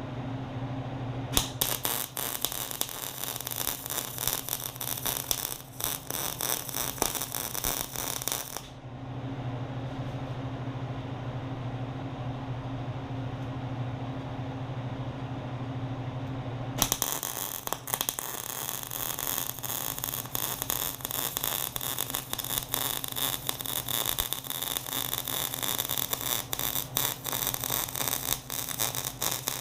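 Electric welder's arc crackling on steel angle iron in two long runs, with a pause of several seconds between them, over a steady electrical hum.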